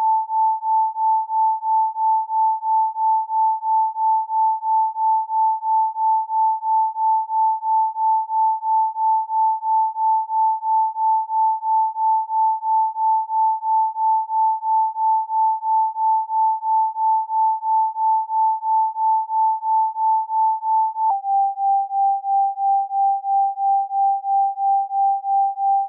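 Isochronic tone: a single pure tone pulsed evenly on and off a few times a second. About three-quarters of the way through it steps down slightly in pitch and keeps pulsing.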